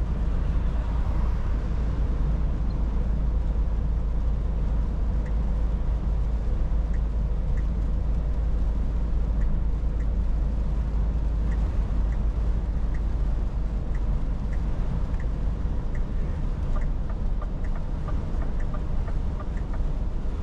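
Cab interior of a Scania S450 truck on the move: its 13-litre straight-six engine and the road give a steady low drone. Faint, evenly spaced light ticking comes in over the second half.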